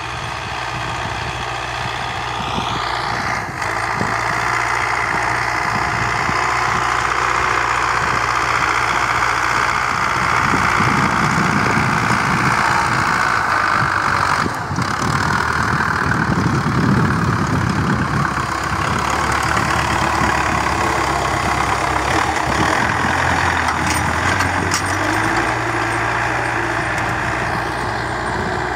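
Farm tractor's diesel engine running steadily as it pulls a disc harrow through tilled soil. It grows louder as the tractor comes close about a third of the way in, then eases off as it moves away.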